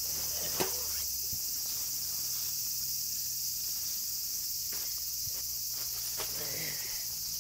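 Steady high-pitched chorus of insects, unbroken throughout, with one sharp click about half a second in.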